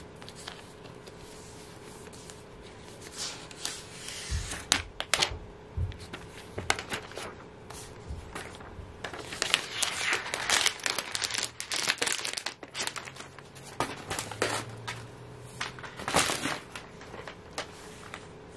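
Thin plastic protective wrap crinkling and rustling as it is pulled off a new laptop, in many short, irregular crackles. There are a couple of soft knocks from handling about four and six seconds in.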